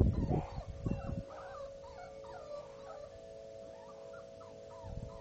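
Puppies whimpering and yipping in many short, high squeaks while they play-fight, with a few loud bumps and scuffles in the first second.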